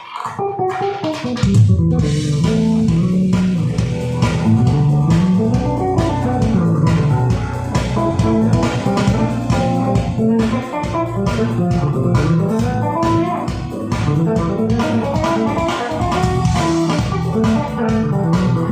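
Beat-driven instrumental music with a bass guitar line, guitar and drums, played back through a JBL ES-series home theater speaker. The full band with bass comes in about a second and a half in.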